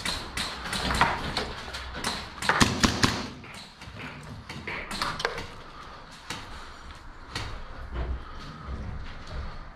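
Scattered sharp clicks and knocks, the loudest a quick cluster of them about two and a half to three seconds in.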